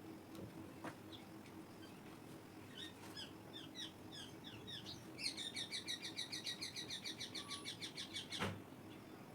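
Bird chirps, a few short falling notes, then a fast, even trill that stops abruptly with a sharp click near the end, over a faint steady hum.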